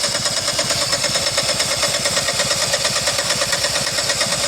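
Citroën Xantia engine turning over on the starter motor with its injectors out for a spray test: steady, rapid, even pulsing over a continuous high whine.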